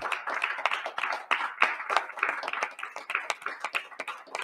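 A handful of people applauding: a quick, irregular patter of hand claps.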